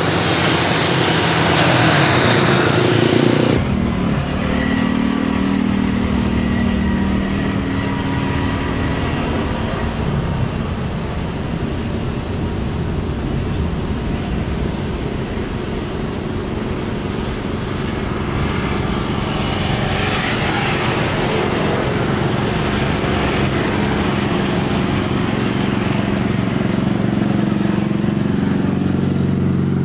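Jet airliner engine noise. A loud roar of jets departing for the first few seconds, then a sudden change to the steadier hum of a Boeing 777's twin engines on approach, growing louder in the second half as the airliner nears touchdown.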